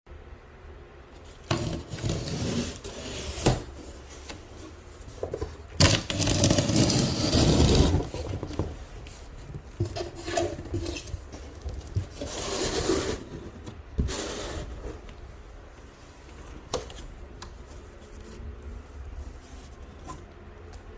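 Box and packaging being handled: irregular rubbing and scraping, with a few sharp knocks.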